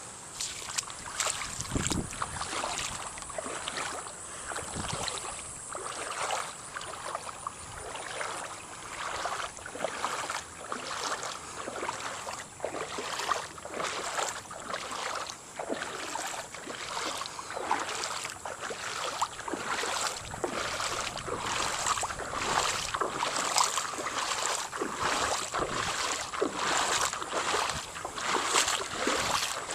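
Legs wading through knee-deep floodwater, a regular swish and slosh with each stride, a little over one step a second.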